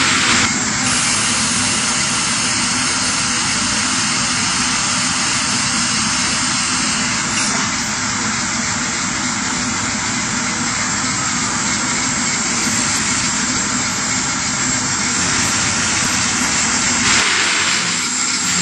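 Robot's motor-driven grinding head sanding the edges of a stack of laminated furniture boards, a loud steady grinding noise; the deepest part of the noise drops away near the end.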